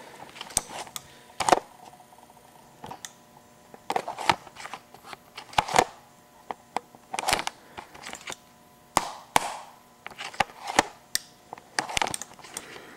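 A series of sharp knocks and clicks at irregular intervals, some loud and some faint, with quiet gaps between them.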